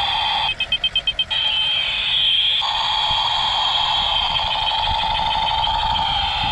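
Battery-powered toy military helicopter playing its electronic sound effects: a steady siren-like tone, broken about half a second in by a fast run of about seven short beeps.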